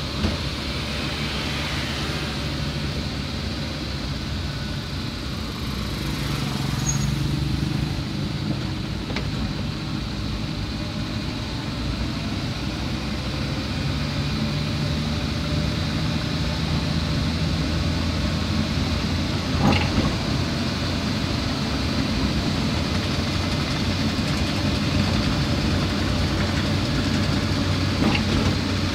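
Steady engine hum and road noise from a moving vehicle in traffic, with two brief knocks about two-thirds of the way through and near the end.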